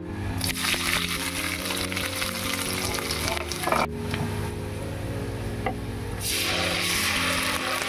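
Hot oil sizzling in a metal kadai, with spices and onions frying in it, under background music. About six seconds in the sizzle grows louder and fuller as a wet masala paste is poured into the hot oil, and there is a short scrape or knock shortly before.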